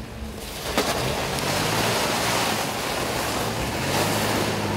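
2015 Nissan Frontier PRO-4X pickup's V6 engine running as the truck drives past over a rutted dirt and snow trail, under a steady rush of tyre and wind noise on the microphone.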